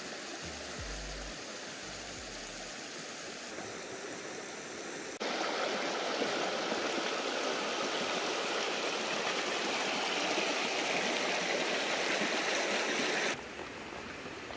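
Flowing river water: a steady rushing hiss that turns suddenly louder and closer about five seconds in, then drops back suddenly to a softer hiss near the end.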